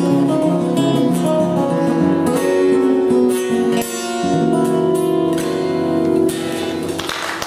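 Three acoustic guitars playing the closing bars of an instrumental rag, ending on a held chord that rings out near the end.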